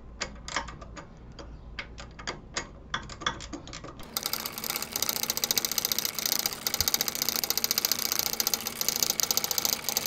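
Hand ratchet clicking as it runs a handlebar riser bolt up into the triple tree: scattered single clicks at first, then, about four seconds in, a fast, steady run of clicking as the ratchet is swung quickly back and forth.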